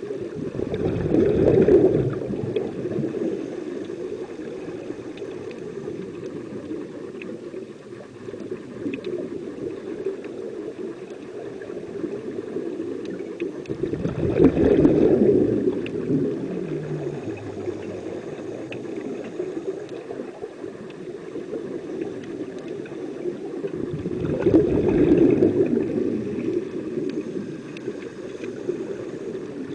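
Scuba regulator exhaust bubbles from exhaled breaths, coming in three loud bubbling swells about ten seconds apart over a steady underwater hiss.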